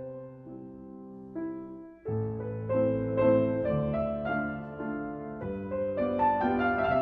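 Piano background music: a gentle melody of held notes that drops away briefly and starts a new, fuller phrase about two seconds in.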